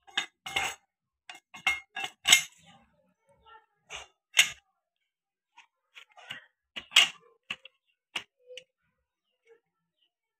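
Metal clinks and knocks of a new clutch pressure plate and its parts being handled and seated onto a Mahindra Arjun 555 tractor's clutch assembly: an irregular series of sharp strikes, the loudest about two, four and seven seconds in.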